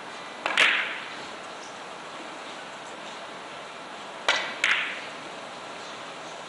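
Sharp clacks of billiard balls striking, each with a short ring in the hall. There is one loud clack about half a second in, then a pair about a third of a second apart near the end.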